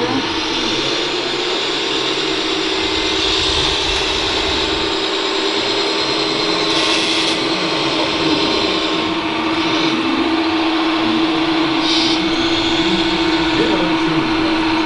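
Radio-controlled scale Bell B40D articulated dump truck running over dirt, with a steady whine and a few short hisses.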